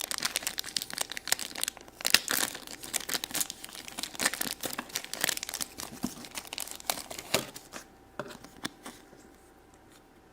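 Plastic toy packaging crinkling and being torn open by hand, a dense irregular crackle that thins out and stops about eight seconds in.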